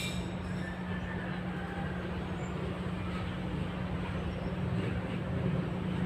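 Steady outdoor rumble with a constant low hum underneath, unchanging throughout.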